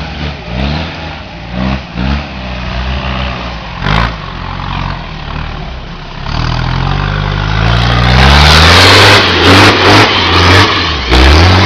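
Off-road 4x4 pickup engine revving in repeated short bursts as it crawls over rough ground, with a sharp knock about four seconds in. From about six seconds the revs climb and hold, and the engine grows very loud as the truck passes close by.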